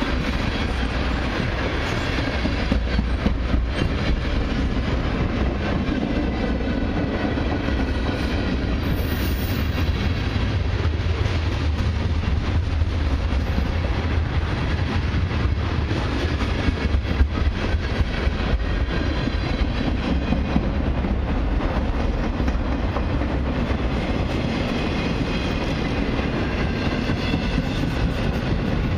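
Long freight train's tank cars and other freight cars rolling past at speed: a steady rumble of steel wheels on the rails.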